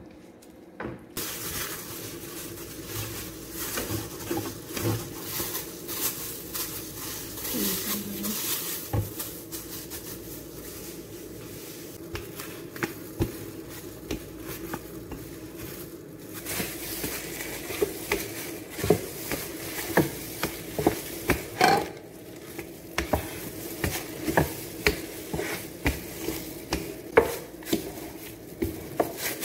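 Kitchen handling sounds: a pastry brush and utensils working against a glass baking dish, then a wooden rolling pin rolling out dough on the countertop, with many light knocks and clacks over a steady background hum. The knocks come thicker and louder in the second half.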